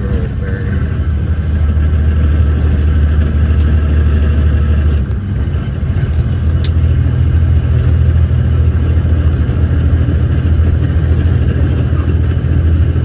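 Off-highway logging truck's diesel engine and drivetrain running under way, heard from inside the cab as a steady low drone. About five seconds in, the drone dips briefly, then picks up again.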